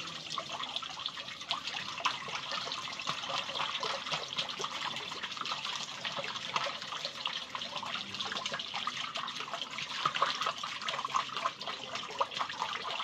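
Wet horchata mash of ground rice being squeezed and worked by hand through a cloth strainer. There is steady squelching, and the strained liquid trickles and drips into the vessel below with many small splashes.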